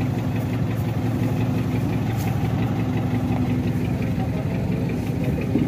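Fishing boat's engine running steadily at low revs, a constant hum.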